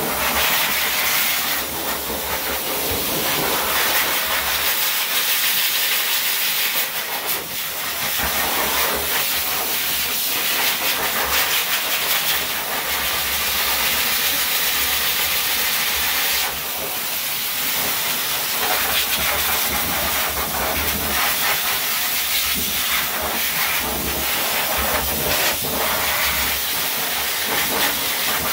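High-velocity dog dryer blowing air through its hose onto a wet dog's coat: a loud, continuous hiss with a low rumble under it. The loudness swells and dips as the nozzle is moved, with a drop about 16 seconds in.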